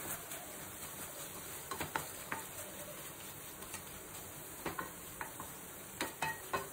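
Onion-tomato masala sizzling in a stainless steel pan, with a spoon scraping and tapping against the pan in a few short strokes about 2 s, 5 s and 6 s in.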